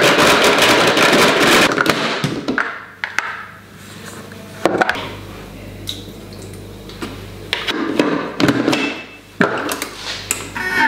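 Thermomix blending frozen bananas with oat milk, running loud for about two seconds and then stopping. Knocks and clatter follow as the mixing bowl and lid are handled, and the machine starts blending again near the end.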